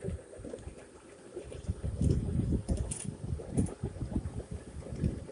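Ride-on 7.5-inch gauge backyard train rolling along its track: an uneven low rumble with wind buffeting the microphone, and a couple of sharp clicks about three seconds in.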